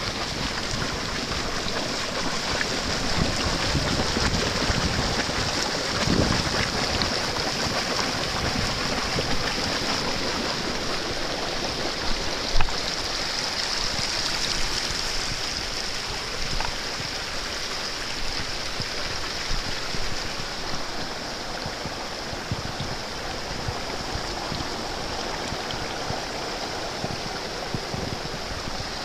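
Boiling volcanic hot-spring water bubbling and running over rocks, with a steady hiss of steam. A single sharp knock sounds about halfway through.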